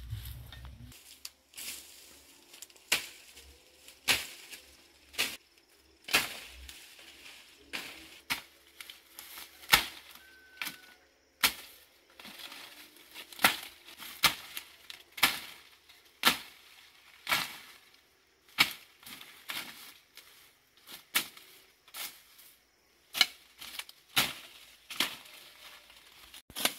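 Machete chopping repeatedly through woody stems and brush, a sharp crack roughly once a second at an uneven pace, with some rustling of cut foliage between strokes.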